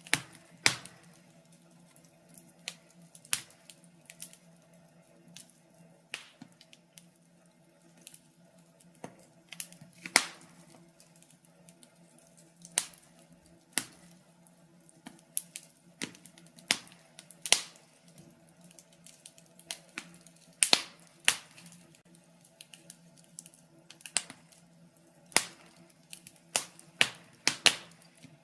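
Wood fire in a fireplace crackling: irregular sharp pops and snaps, about one or two a second and uneven in loudness, over a faint steady low hum.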